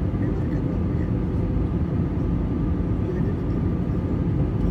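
Airbus A320 cabin noise in flight, heard inside the cabin at a window seat over the wing: the jet engines and the airflow make a steady low rumble, with a faint steady hum above it.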